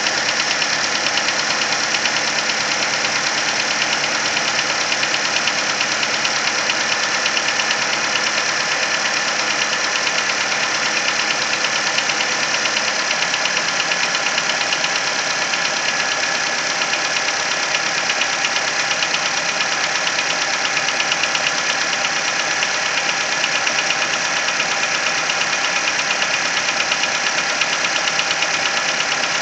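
Nissan Versa four-cylinder engine running steadily at low revs with a rapid, even tap, plain as day. The owner hears it coming from around cylinder number 3 and says the noise lasts for the first 10–15 minutes until the engine warms up.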